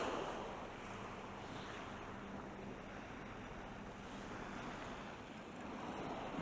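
Sea surf washing on the shore, with wind on the microphone and a faint, steady low hum through the first half.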